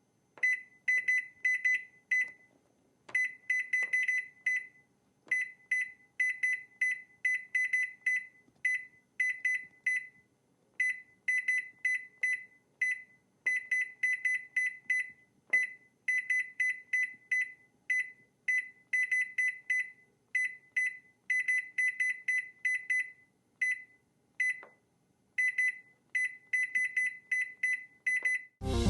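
Kitchen appliance keypad beeping as its buttons are pressed: short, high-pitched beeps in quick, irregular runs of several presses, with brief pauses between runs.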